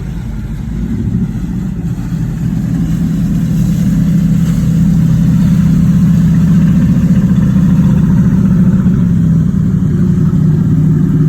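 An engine running steadily with a low hum, growing louder over the first few seconds and then holding level.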